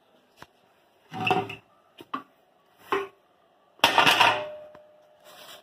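A few separate metallic clanks and knocks of metal parts being handled. The loudest comes about four seconds in and leaves a short ringing tone.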